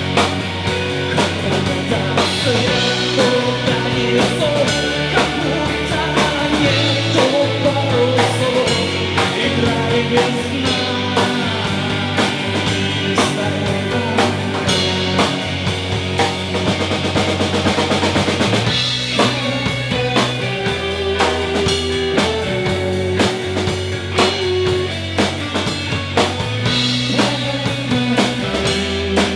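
Live rock band playing an instrumental passage: drum kit with kick and snare keeping a steady beat under bass and electric guitar.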